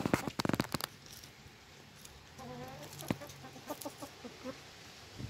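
Hens clucking close by. A quick run of loud clucks comes at the start, then a drawn-out wavering call about two and a half seconds in, a sharp tap just after three seconds, and a string of short clucks.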